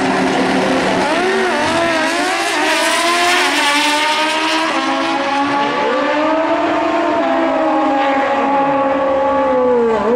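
Two drag-racing motorcycles at full throttle down the strip. The engines run high and loud, their pitch climbing and dropping back with the gear changes, then sliding down near the end as the bikes pull away.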